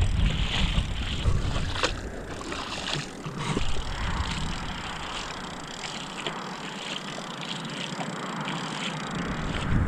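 Sloshing steps wading through ankle-deep water on a grassy flat, with wind buffeting the microphone for the first few seconds.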